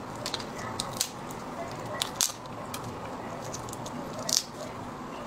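Raw marinated shellfish being pulled apart by hand: a few sharp cracks and clicks of the shell, with wet squishing, the loudest crack about four seconds in.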